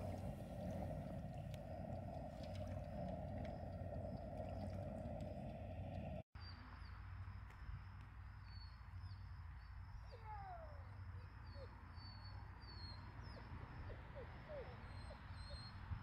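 Quiet outdoor ambience: insects such as crickets chirring steadily at a high pitch, with a steady hum for the first six seconds. After a brief dropout, a few short falling bird chirps come in the second half.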